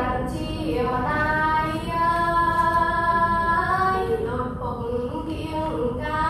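A girl's voice chanting Khmer verse in a melodic, sung recitation, holding long notes that slide from one pitch to the next, with a short breath about four seconds in.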